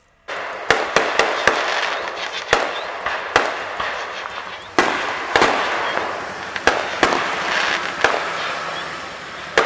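Aerial fireworks display: about a dozen sharp bangs of bursting shells at irregular intervals over a continuous hiss, starting abruptly a fraction of a second in.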